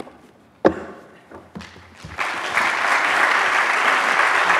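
Audience applauding, the clapping building up about two seconds in and going on steadily. Before it, a thump about a second in and a few soft knocks as the closed book is set down on the wooden lectern.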